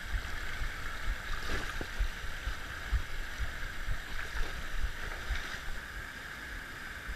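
Water rushing steadily out of a dam outflow, with wind buffeting the microphone in irregular low thumps.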